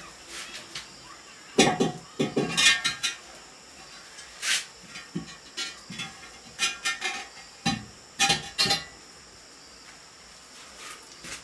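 Irregular knocks and ringing clinks of dishes and cookware being handled, some strikes ringing briefly, with a quiet spell near the end.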